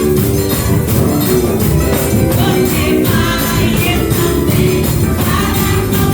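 Live gospel music: voices singing over a steady, quick tambourine beat.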